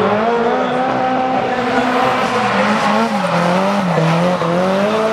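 Two drift cars in a tandem run, engines held high in the revs with their pitch wavering up and down as the throttle is worked, over the steady hiss and squeal of sliding tyres.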